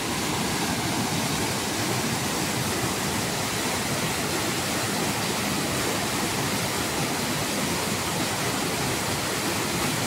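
Waterfall running high with strong, muddy floodwater, pouring over rock ledges and rushing over the rocks below: a steady, unbroken rush of water that does not change.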